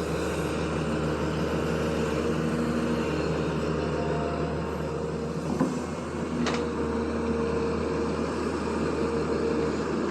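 Zoomlion excavator's diesel engine running steadily, with a couple of short knocks about midway.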